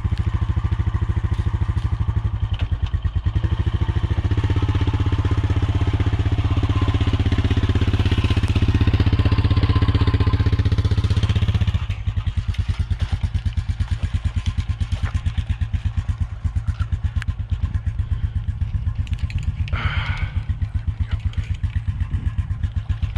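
ATV engine running with a fast, even pulse, fuller and a little louder for several seconds before dropping back abruptly to a lighter idle about halfway through.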